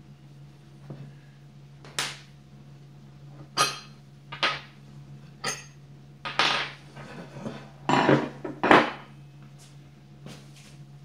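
Steel axe head cut from a motorcycle brake disc and wooden handle scales knocking and clattering on a table as they are handled and set down: about seven irregular knocks, the loudest two in the last third, over a steady low hum.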